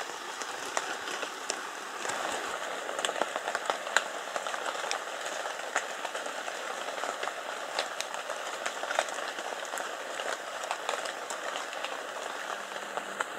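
Light rain pattering: a steady hiss dotted with irregular ticks of single drops.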